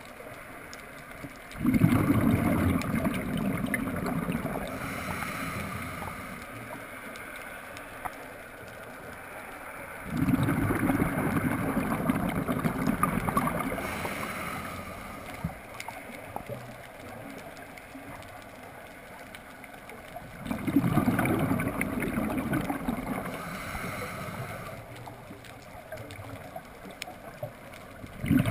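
Scuba regulator exhaust: bubbles from the diver's exhaled breath gurgle out in a burst a few seconds long that fades, about every nine to ten seconds. There are three such bursts, a fourth starts right at the end, and it is quieter between them.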